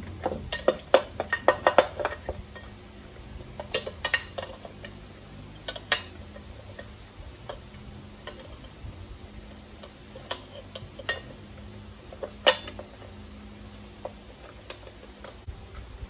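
Hard plastic parts clicking and clattering as a black plastic engine cover is handled and fitted against a gas RC truck's engine: a quick flurry of clicks in the first two seconds, then scattered single clicks, with one sharp knock about twelve and a half seconds in. A faint steady low hum runs underneath.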